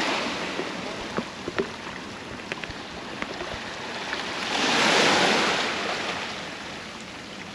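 Sea surf on the beach: the wash of waves, with one wave swelling and breaking loudest about five seconds in. A few faint clicks in the first few seconds.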